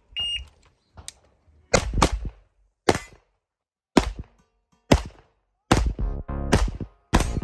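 An electronic shot timer beeps once, then a handgun fires about nine shots, singly and in quick pairs, with pauses of up to a second between them.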